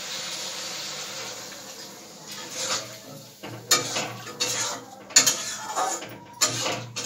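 Metal spatula scraping and knocking against a metal kadhai as vegetables are stirred in a little water, in irregular strokes from about two seconds in. A soft steady hiss fills the first two seconds.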